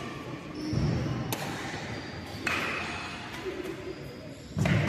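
Badminton rackets hitting a shuttlecock during a rally: a few sharp hits, a second or more apart, with low thuds of feet on the court floor.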